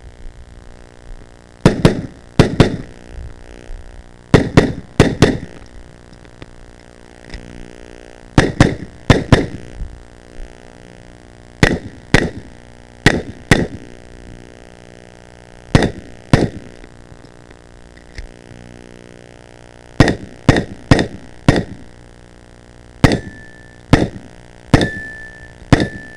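Tanfoglio 9mm pistol shots fired in quick pairs and groups with short pauses between, about two dozen in all. A brief steady ring follows a few of the last shots.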